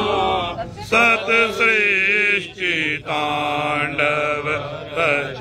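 Devotional Hindu chanting: a voice sings a hymn in long, wavering phrases, with short breaths between them.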